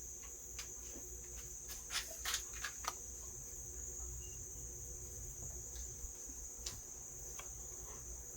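Light clicks and taps of a square and marking tool being handled against a slingshot frame while lining up a cut mark: a quick cluster about two seconds in and one more click near the end. A steady high-pitched tone runs underneath.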